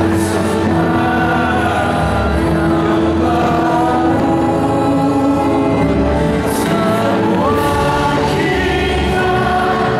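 A large choir and crowd singing along with accompanying music. A few brief high crackles from fireworks bursting overhead come through near the start and around two-thirds of the way in.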